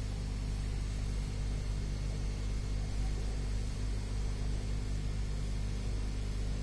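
Steady low electrical hum, unchanging throughout, with a faint hiss over it.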